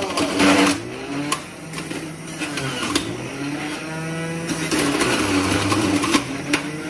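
Electric juicer running while vegetables are pushed down its feed chute with the plunger; the motor's pitch dips and recovers several times as it takes the load, with a few sharp knocks.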